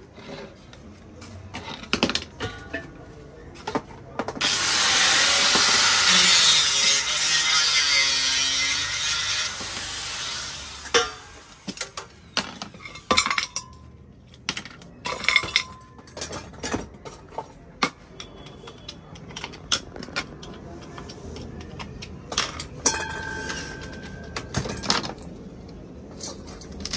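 Hand-tool work on small metal stove parts at a workbench: scattered clicks, knocks and clinks, with a stretch of loud scraping lasting about five seconds, starting about four seconds in. A few metal clinks ring briefly later on.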